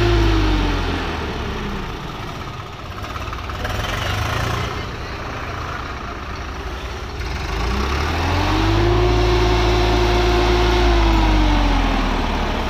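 Swaraj 963 FE tractor's diesel engine being revved. It drops back to idle about a second in and picks up briefly around four seconds. Near eight seconds it revs up again, holds high for a few seconds, and falls away near the end.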